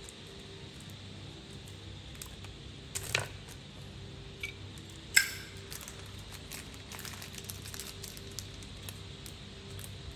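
Zippo lighter being handled: a few sharp metallic clicks, the loudest about five seconds in with a short ringing tail, over a low steady hum.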